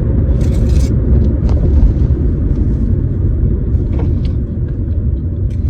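Steady low rumble of a running car, as heard from inside, with a short rustle about half a second in and a few light clicks.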